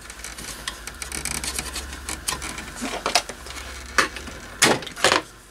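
Plastic front panel of an APC Smart-UPS 750 being worked loose from its sheet-metal chassis by hand: a run of small plastic and metal clicks and rattles, with three sharper clicks near the end.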